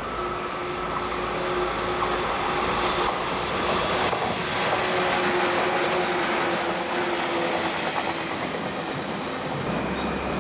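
A JR West 117 series electric train passing close by. Its wheels run on the rails, with a steady whine underneath; the sound swells to its loudest in the middle and fades near the end as the train moves away.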